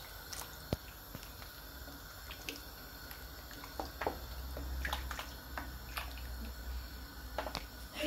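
Palm-oil soup being stirred by hand in a stainless steel pot: faint liquid sloshing with scattered light clicks and knocks of the spoon against the pot. The stirring works in the added garri so it does not form lumps.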